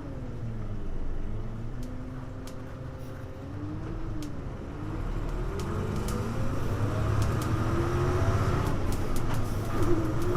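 Hino U-HU2MLAA city bus heard from inside while running, with a low rumble and a thin whine that glides down and up, then climbs and grows louder in the second half as the bus gathers speed. This bus is known for an unusual running noise.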